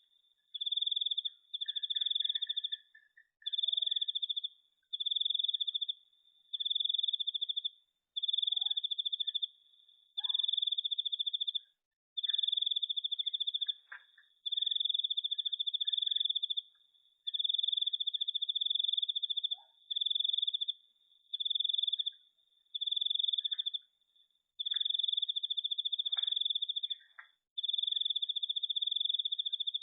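A cricket trilling: one high, steady, rapidly pulsed note in repeated bursts of one to two seconds, with short pauses between them. Faint scattered chirps sit underneath.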